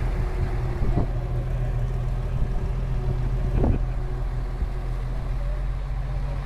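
Farm tractor engine running steadily at low speed, heard from on board: a low, even hum.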